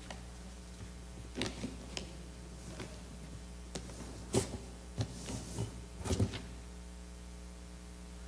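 Scattered light knocks and clicks from cardboard boxes and small objects being handled, about a dozen, with a cluster a little past halfway, over a steady low hum.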